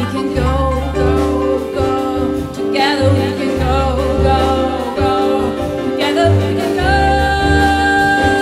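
Live big-band jazz with female voices singing in harmony over bass notes and the band; about seven seconds in, a high note is held steady.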